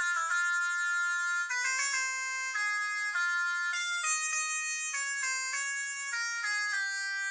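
A built-in polyphonic ringtone of a COSUN 9958 Chinese mobile phone playing: an electronic melody of quick stepped notes, several at once. It sounds thin and high, with no bass.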